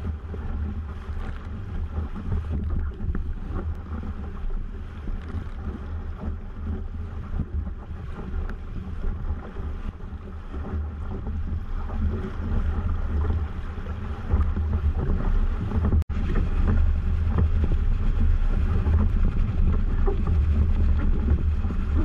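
Wind buffeting the microphone of a camera mounted on a Weta trimaran under sail, over water rushing and splashing along the hulls. It is a steady low rumble that grows louder about two-thirds of the way through and drops out for an instant shortly after.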